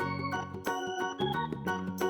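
Cheerful children's background music played on an electronic keyboard or organ, with a note melody over a bass line.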